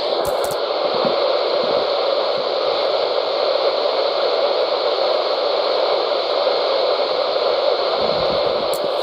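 Steady hiss of radio static from a NOAA weather radio receiver with no voice on it, with a short click near the start and another near the end.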